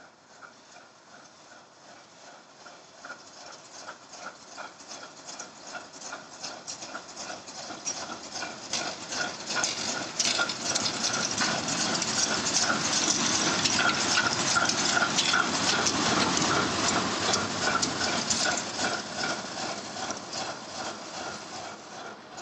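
ChME3 diesel shunting locomotive passing close at low speed, its six-cylinder diesel engine running with a steady rhythmic beat. Louder as it comes alongside about halfway through, then fading as it moves off.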